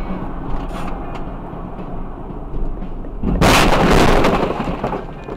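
Steady road and engine noise heard from inside a car. About three and a half seconds in, a sudden loud blast of snow and slush thrown up by a passing truck hits the windshield and body, then fades over about a second.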